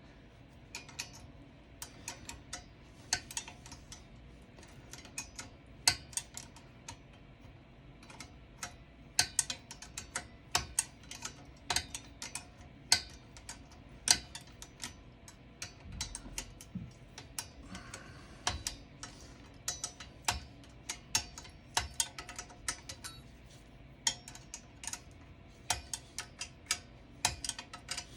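Ratchet wrench clicking in short irregular runs as the clutch pedal's bolt and nut are tightened down, with sharp metal ticks coming in quick clusters.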